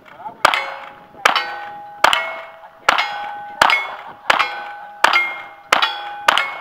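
A lever-action rifle fired in rapid succession: nine shots at an even pace, under a second apart. Each shot is followed at once by the ringing clang of a hit steel target.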